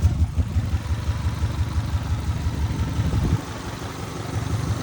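Car engine idling with an even, rhythmic low pulse and a weird slap; the motor is low on oil. About three and a half seconds in the engine sound drops away and gets quieter.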